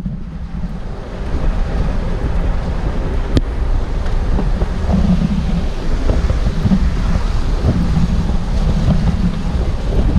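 Wind buffeting an action-camera microphone over the low rumble of a vehicle driving along a rough, rocky dirt track. A single sharp click sounds about a third of the way in.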